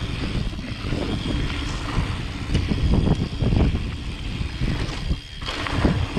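Wind rushing over the microphone while a mountain bike rattles down a rough trail at speed, with repeated sharp knocks and clatter from the bike over bumps and landings.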